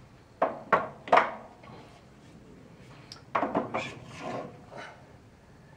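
Knocks and clicks of a launcher and a chronograph being handled on a tabletop: three sharp knocks in the first second and a second cluster from about three and a half seconds in.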